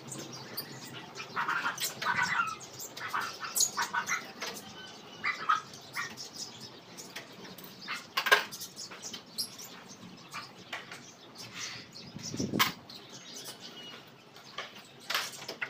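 Small caged birds chirping, mixed with knocks and clicks from work on a screen door being fitted; two sharp knocks stand out, about eight and twelve and a half seconds in.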